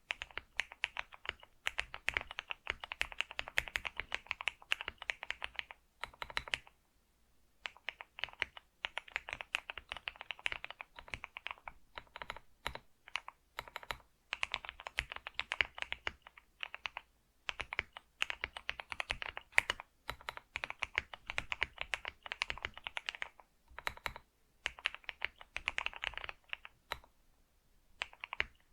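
Computer keyboard being typed on, fast runs of keystroke clicks in bursts of a few seconds broken by brief pauses.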